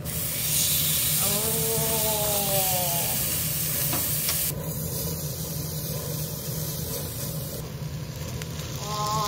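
Beef steak searing in a hot frying pan, a steady loud sizzle as the meat is turned with tongs. The sizzle drops abruptly in level about halfway through.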